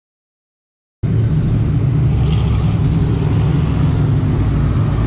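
Silence for about a second, then the engines of dirt-track Sportsman modified race cars start abruptly, a steady, loud, low drone.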